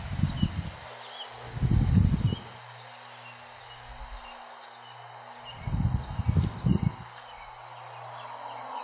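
Wind rumbling on the microphone in three gusts, over faint insect and bird chirps.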